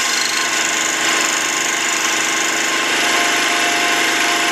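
Mini lathe running steadily, its spindle spinning a small diamond burr that grinds a slot into a steel shell holder: an even motor hum with a few held tones under a constant high grinding hiss.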